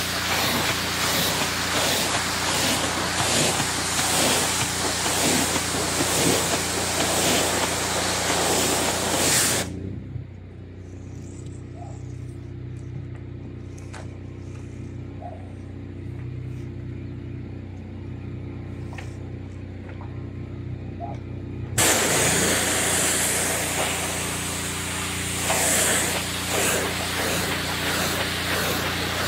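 Pressure washer spraying a jet of water onto solar panels, a loud steady hiss. The spray stops about ten seconds in, leaving the steady drone of the pressure washer's motor, then starts again about twelve seconds later.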